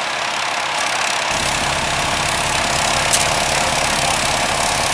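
Gas engine of a front-mounted Berco snow blower running steadily under load, together with the John Deere Gator's engine, as the blower churns through wet, heavy snow.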